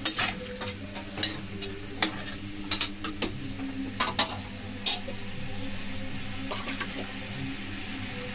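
Metal spatula scraping and knocking against a steel kadai while brinjal and potato pieces are stirred in hot spiced oil, over a steady frying sizzle. The clicks stop about five seconds in, leaving the sizzle alone.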